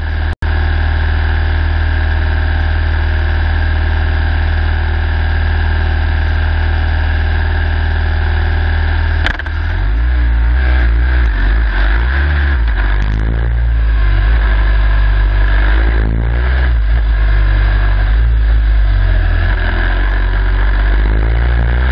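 Formula Student race car's turbocharged engine idling steadily, then about nine seconds in a clunk as first gear goes in, and the engine revs unevenly as the car pulls away and accelerates.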